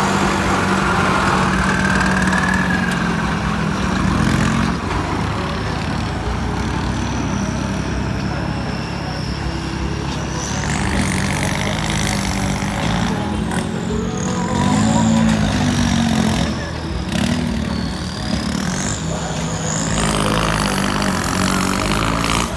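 Turbocharged Kubota tractor diesel engines running, first idling steadily close by, then revving up and down as the tractors push sand with their front blades. A high whistle rises and falls several times over the engine sound.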